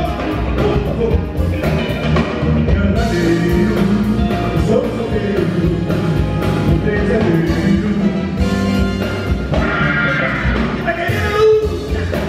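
A live soul-funk band plays with a steady bass and beat while a man sings lead into the microphone.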